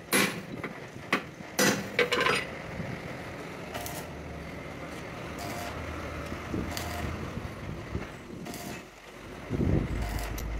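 Three sharp metal knocks in the first two and a half seconds, steel tools striking and being set down on the steel fifth-wheel plate, then steady background noise.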